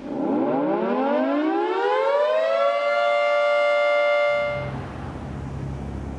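Whelen 2806 electronic outdoor warning siren sounding a single tone that rises in pitch over about two and a half seconds, holds steady for about two seconds, then stops. A steady low hum takes over at the end.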